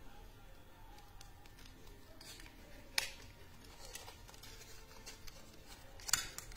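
A shrink-wrapped deck of game cards being handled as its plastic wrap is picked open: faint crinkles and small clicks, with a sharper click about three seconds in and a few more near the end.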